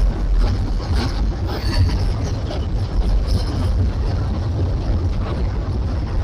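Freight train cars rolling across an elevated railway bridge overhead: a steady low rumble with scattered faint clicks from the wheels.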